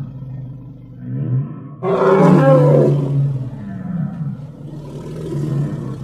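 Dinosaur roar sound effect: deep growling, then a sudden loud roar about two seconds in that lasts about a second and sinks back into lower growls.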